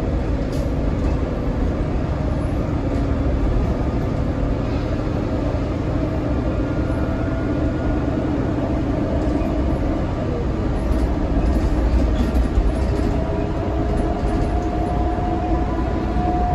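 Cabin noise of a 2012 New Flyer D60LFR articulated bus under way: the Cummins ISL9 diesel and Allison B500R automatic transmission running with a steady low rumble and a whine, its pitch stepping up a little past the middle, with a few light rattles.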